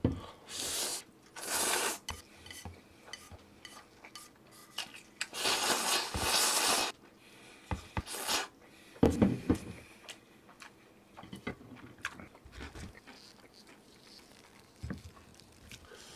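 Close-miked eating sounds: utensils knocking and scraping against a dish, with several short noisy bursts, the longest lasting about a second and a half about five seconds in.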